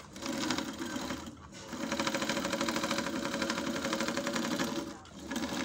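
Köhler B-400 serger (overlock machine) running fast, stitching along a fabric edge with a rapid, even chatter. It runs in two spells with a short pause about a second and a half in, stops briefly near the end, then starts again.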